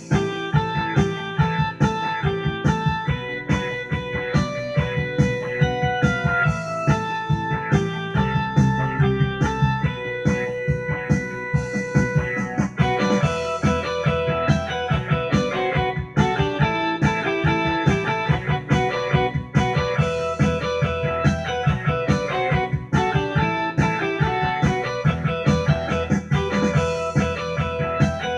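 Electronic keyboard playing a blues-rock tune with a guitar-like sound over a steady beat. Higher notes join in about halfway through.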